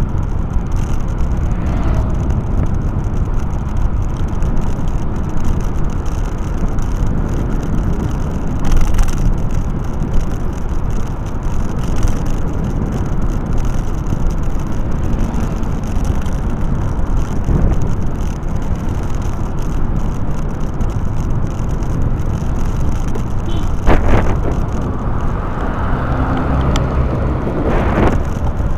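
Steady rumble of wind and road noise from a vehicle driving along a paved road, with a few brief knocks, the sharpest near the end.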